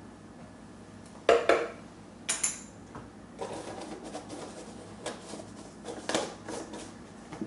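Small kitchen clatter as ground turmeric is measured out: a measuring spoon and spice jar clinking and scraping. Two sharp clacks come about a second apart, then a run of lighter taps and scrapes.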